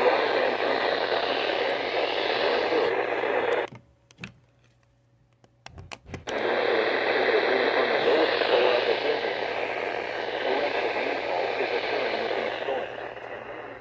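Weather radio receiver hissing with static, the sign of poor reception. About four seconds in the static cuts out for a couple of seconds, with a few sharp clicks, then comes back.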